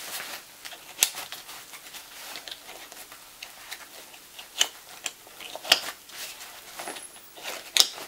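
Plastic side-release (Fastex) buckles on a life jacket clicking shut as the vest is fastened: several sharp clicks spread out, with soft rustling of fabric and straps in between.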